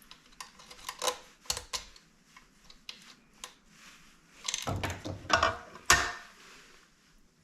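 Light metallic clicks and clinks of a screwdriver and small screws being handled while the motor mounting screws of a KitchenAid stand mixer are backed out, with a cluster of sharper knocks about four and a half to six seconds in.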